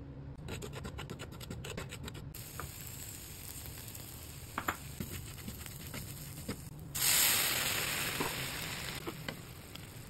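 Wooden spatula stirring and scraping semolina and vegetables in a frying pan, with scattered clicks against the pan. About seven seconds in, water hits the hot pan with a sudden loud sizzle that fades over a couple of seconds.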